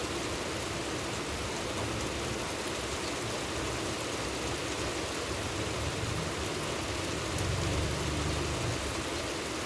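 Steady rain falling, an even hiss of drops. A low rumble swells briefly under it near the end.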